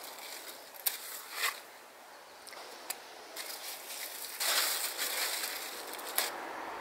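Leaves and vines rustling as vegetables are snipped from a climbing plant with scissors and handled into a wicker basket, with a few sharp clicks and a louder burst of rustling about two-thirds through.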